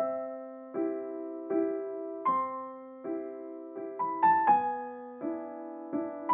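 Background piano music: a slow, gentle melody of single struck notes and soft chords, roughly one every three-quarters of a second, that begins suddenly out of silence.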